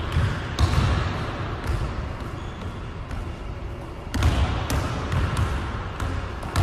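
A basketball dribbled on a hardwood gym floor, bouncing repeatedly in a series of sharp thuds.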